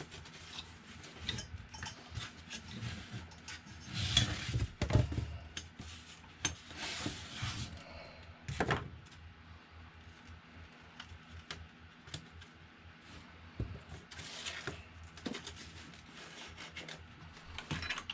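Hands handling a 3D printer's wiring harness, pulling cables and their plastic connectors around: irregular rubbing and rustling with light clicks and knocks, loudest about four to five seconds in.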